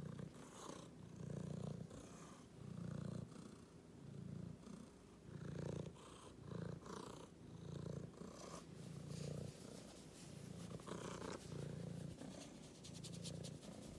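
Domestic cat purring close up while being stroked, the low purr swelling and fading with each breath.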